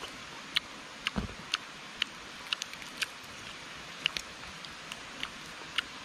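Eating of roasted meat held by hand: irregular sharp, wet clicks and crackles of chewing and tearing, one or two a second, over a steady hiss. A dull thump about a second in.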